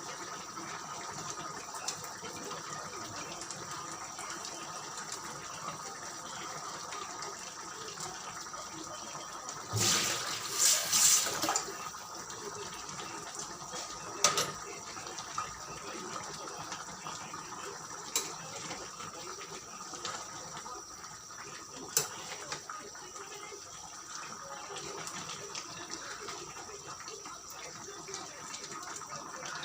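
Chicken and fresh tomato sauce simmering in a pan, a steady bubbling hiss. A short louder burst comes about ten seconds in, and a few sharp clicks follow later.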